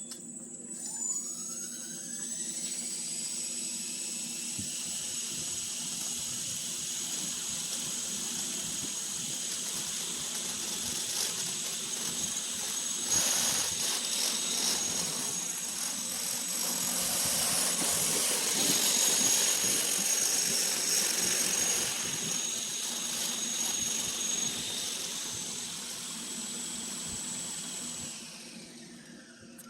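The electric motors and belt-driven coaxial rotors of a 1:4 scale model helicopter spool up with a rising whine, run steadily with a high whine and rushing rotor wash, louder in the middle, and wind down near the end. The run is on a battery low on voltage.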